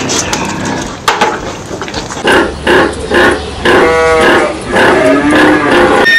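Farm animals calling: a quick run of four short calls, then a longer drawn-out call about four seconds in, and a few more calls near the end.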